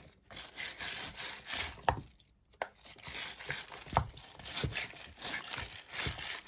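Scrubbing a fidget toy during washing: rough rubbing strokes in quick succession, pausing briefly about two seconds in, with a few light knocks.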